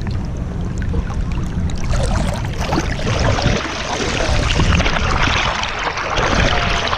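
Water rushing and splashing at a boat, with a low wind rumble on the microphone; the rushing grows louder about two seconds in.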